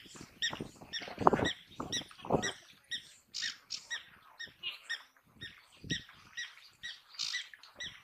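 African wild dogs twittering: a run of short, high, squeaky chirps, about two a second. A few louder, low scuffling thuds come in the first two seconds.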